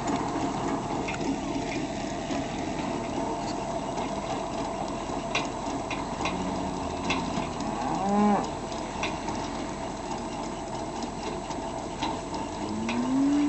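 Tractor and Agmech widebody bale feeder running steadily while unrolling square-bale hay, with cattle mooing over it: one long moo about seven to eight seconds in and another rising call starting near the end.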